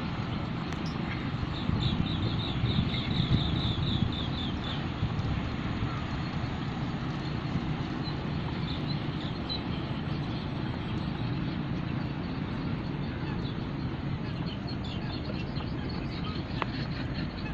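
Outdoor ambience: a steady low rumble, with a bird calling in a quick run of high chirps, about four a second, from about two to five seconds in, and a few fainter chirps later.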